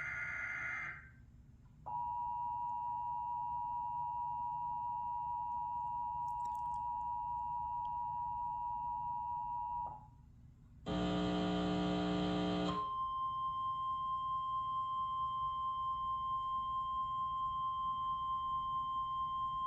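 Emergency Alert System tones: the end of a SAME data burst, then the two-tone EAS attention signal held steadily for about eight seconds. After a brief gap, a loud buzzing tone sounds for about two seconds. Then the steady single-pitch 1050 Hz NOAA Weather Radio warning alarm tone begins, announcing a tornado warning issued as a test.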